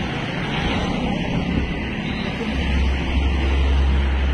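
Outdoor crowd noise from a gathering of protesters: a steady mix of many people, with a heavy low rumble that grows louder about two and a half seconds in.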